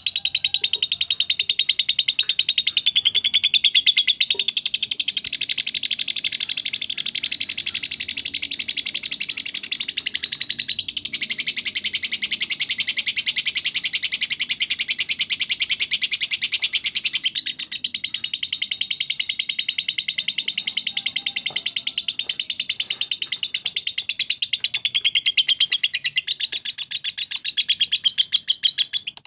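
A songbird singing a long, unbroken run of very rapid, high repeated notes, dipping only briefly a couple of times and stopping near the end.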